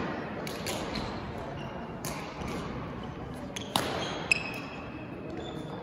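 Badminton rally in a gymnasium: sharp racket strokes on the shuttlecock, the two loudest nearly half a second apart near the middle. Sneakers squeak on the court floor just after them, and the hall echoes.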